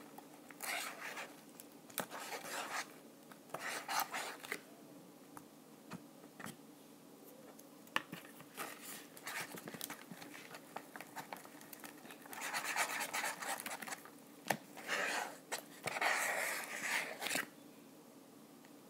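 Hands mixing sticky glue slime that has just been given its activator in a paper bowl: irregular bursts of wet squishing, rubbing and scraping against the bowl, with small sharp pops and clicks. The noises come in a few bunches early on, ease off in the middle, and are loudest and longest after about twelve seconds.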